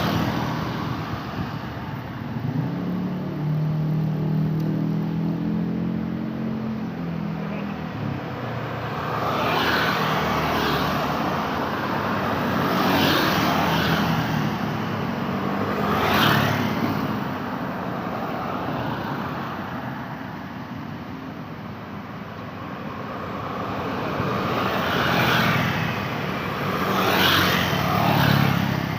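Road traffic on a main road: cars and motorcycles passing one after another over a steady hiss of tyres on the roadway, each pass swelling and fading. A low engine drone rises and fades a few seconds in.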